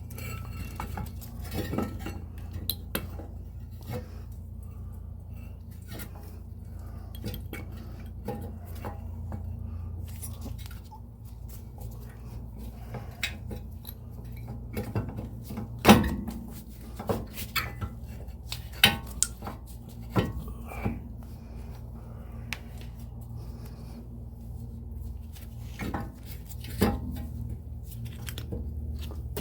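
Scattered metal clinks and knocks, the sharpest about 16 seconds in, as a Jeep Cherokee XJ front brake caliper, its piston pressed back, is worked over the rotor, with a steady low hum underneath.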